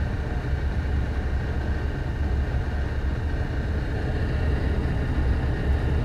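Gas furnace running with its burners lit, a steady low hum.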